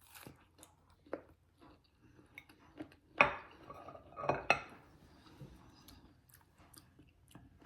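A few sharp clinks and knocks of cutlery against a plate, the loudest about three seconds in and two more about a second later.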